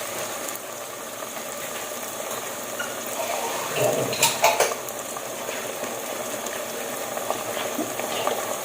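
Onion and tomato paste sizzling in oil in a pot while a spoon stirs and scrapes, with a few sharp knocks of the spoon against the pot about four seconds in.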